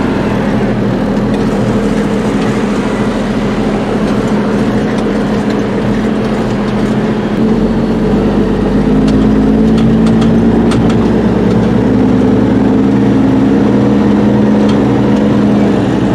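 Farm truck's engine running, heard from inside the cab as a steady drone; it picks up a little in pitch and loudness about eight or nine seconds in.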